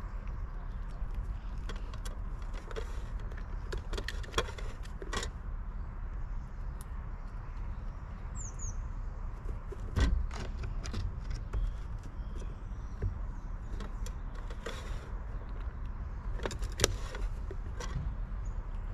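Outdoor garden ambience: a steady low rumble of distant traffic, with scattered clicks and knocks, the loudest about ten seconds in, and a brief high bird chirp about halfway through.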